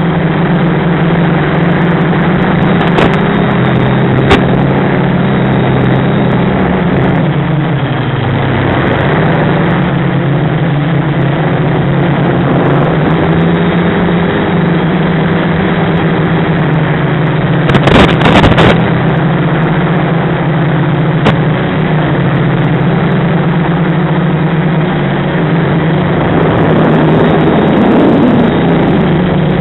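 FPV quadcopter's Sunnysky brushless motors and propellers buzzing steadily, the pitch dropping about eight seconds in and climbing back as the throttle changes. A short cluster of sharp knocks about eighteen seconds in, with single clicks here and there.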